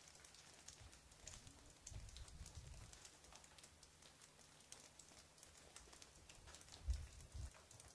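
Faint footsteps crunching in snow, about two soft crunches a second, with a few low thumps, the loudest about a second before the end.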